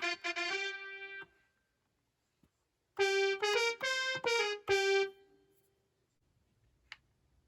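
Akai MPK Mini Play MK3 playing a piano-like keyboard voice, with two short runs of notes and a pause of about a second and a half between them. A single small click comes near the end.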